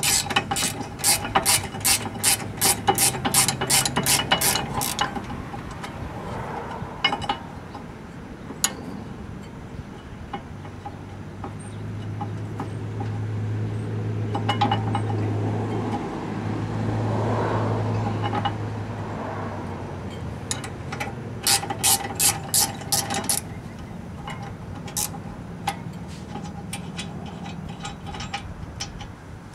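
Ratcheting combination wrench clicking rapidly as its pawl slips on the back-strokes while loosening a 17 mm caliper bracket bolt: a run of about five seconds, then a shorter run about two-thirds of the way through. A low, steady hum rises and fades in the middle.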